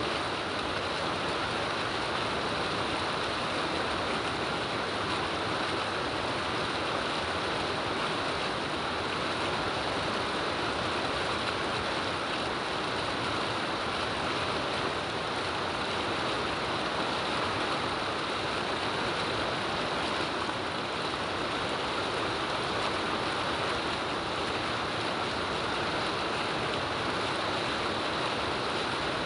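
Rain falling steadily: an even, unbroken hiss with no change in level.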